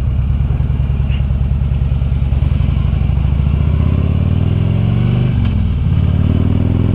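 Harley-Davidson Ultra Limited's V-twin engine running under way. From about halfway in it rises in pitch as the bike accelerates, dips briefly at a gear change, then climbs again and levels off.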